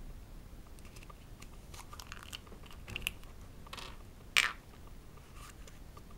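Hands handling a small plastic Kinder Surprise toy, its yellow plastic capsule and the folded paper leaflet inside: scattered small clicks and paper rustles, with one sharp, loud click about four and a half seconds in.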